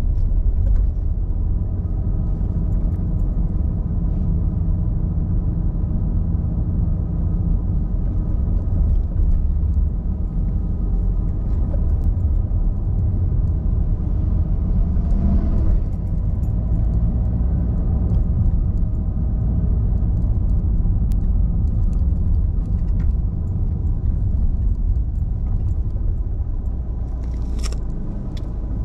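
Steady low road rumble of a car driving, mostly tyre and engine noise, with a brief swell about halfway through.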